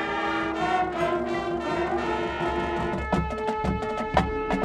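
Marching band playing: the brass section holds sustained chords, and from about three seconds in sharp percussion hits punctuate the music.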